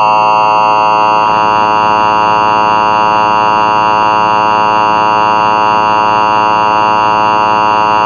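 Emergency Alert System attention signal: a loud, steady, buzzy alarm tone held without change for about eight seconds.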